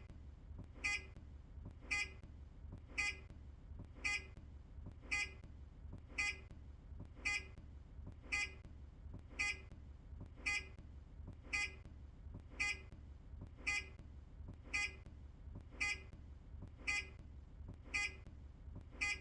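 Indicator sounder of an earlier Optare Solo bus, giving a short, high-pitched beep about once a second in a steady, even rhythm while the turn signal is on.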